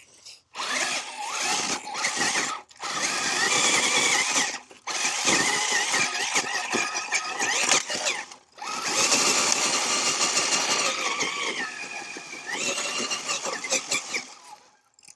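Axial SCX6 RC crawler's electric motor and geared drivetrain whining under throttle in several pulls of a couple of seconds each, with short pauses between them. Near the end the whine rises in pitch.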